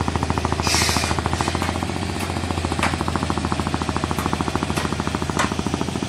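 Motor of a wooden river cargo boat chugging steadily under way, with a fast, even beat over a low hum. A brief hiss comes a little under a second in.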